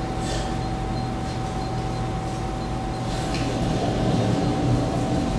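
Steady low rumble and hiss of outdoor background noise from a documentary film's soundtrack played over an auditorium's loudspeakers, with a faint constant hum underneath.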